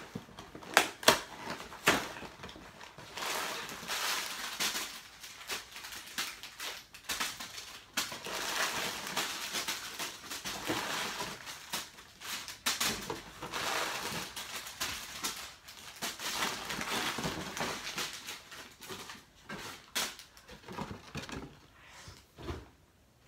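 Plastic candy wrappers crinkling and small wrapped candies rattling and spilling as they are pulled out of a cardboard box and scattered. A few sharp clicks come in the first two seconds, and the crinkling dies away near the end.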